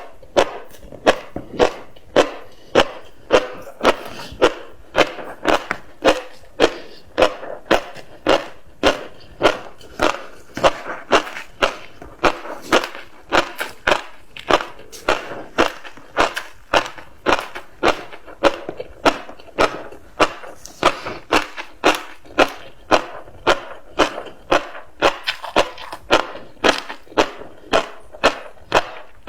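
Close-miked chewing of tobiko (flying fish roe), each bite a sharp crunch, in a steady rhythm of a little under two a second.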